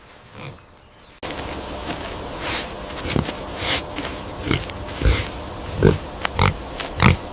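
Repeated short, low animal grunts, one or two a second, with breathy snuffling noise between them, starting abruptly about a second in.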